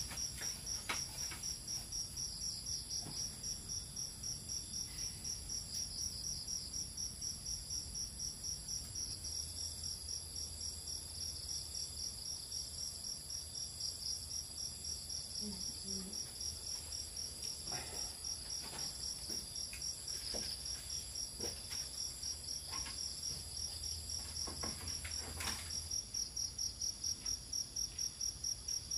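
A chorus of insects, likely crickets, chirping in a steady rapid pulse, with a thin steady high hiss above it. A few faint knocks are scattered through, and the pulsing grows more distinct near the end.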